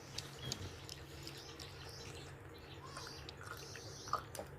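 Faint wet chewing and mouth clicks from eating syrup-soaked rasgulla, over a low steady hum.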